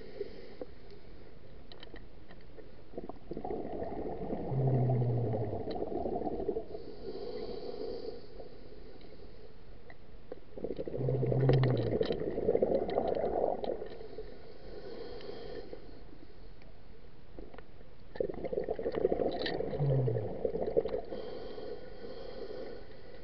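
Scuba diver breathing through a regulator underwater, heard through the camera housing: three exhalations, each a bubbling rumble lasting about two to three seconds and coming about every seven or eight seconds, with a fainter hiss of inhalation between them.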